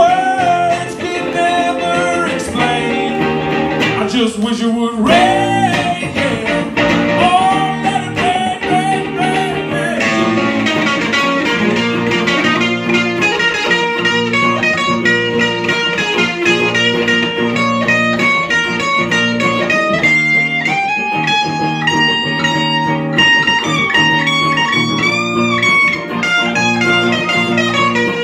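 Two electric guitars playing a blues-flavoured song through an amp, with a man singing in the first part and a lead guitar line carrying the later part.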